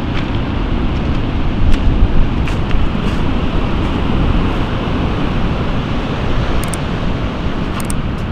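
Strong wind buffeting the microphone over stormy sea surf breaking on a pebble beach, a steady heavy rumble, with a few faint ticks near the end.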